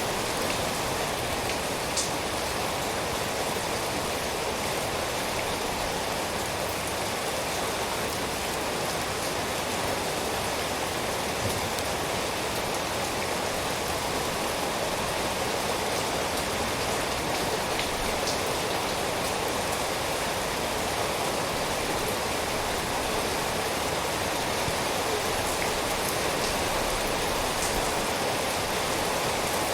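Steady rainfall, an even hiss of rain with a few distinct drops ticking through it.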